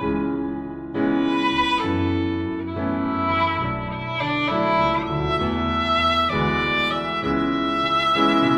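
Background music: a violin melody over a sustained string and bass accompaniment, notes changing every half second or so.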